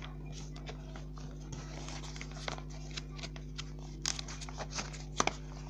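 Pencil scratching on paper in short, irregular strokes, a few louder ticks about four and five seconds in, over a steady low electrical hum.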